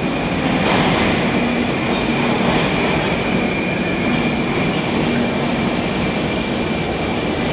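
Metro train running in an underground station: a steady rumble of wheels on rail with a steady high-pitched whine over it.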